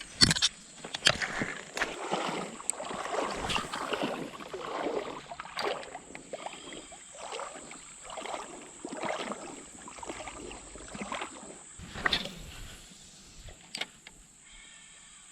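Water sloshing and splashing in uneven strokes about once a second, as of a person wading through a river. The sloshing stops shortly before the end.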